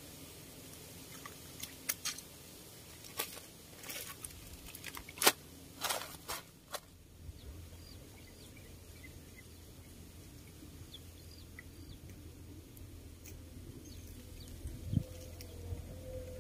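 Scattered small clicks and knocks from an angler handling his fishing gear, the loudest about five seconds in. From about seven seconds in, quiet outdoor background with a few faint bird chirps and a soft thump near the end.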